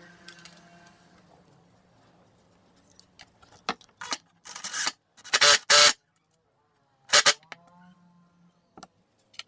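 Power drill-driver running a screw through a steel bracket into a wooden block, in several short loud bursts about four seconds in and one more a little later.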